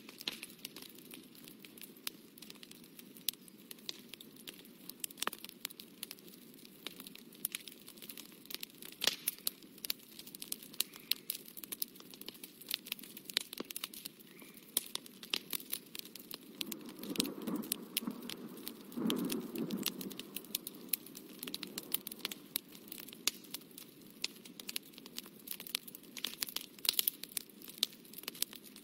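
Fine watercolour brush dabbing and stroking on paper, heard as many small scratchy clicks, with a louder rustle of hand and paper for a few seconds a little past the middle.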